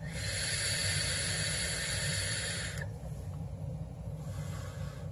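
Vape mod firing its coil at 70 watts: a steady sizzling hiss of e-liquid vaporising as air is drawn through the atomizer, lasting nearly three seconds and cutting off suddenly when the fire button is released. A fainter breathy exhale of vapour follows near the end.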